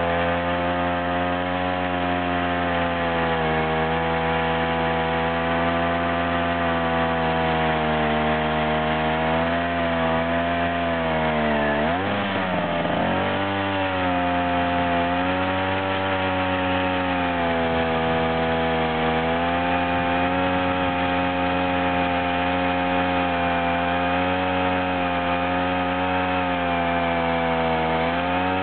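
Ural chainsaw's single-cylinder two-stroke engine running steadily under load as the chainsaw mill rips lengthwise through a log. About twelve seconds in, its pitch dips sharply for about a second and then recovers.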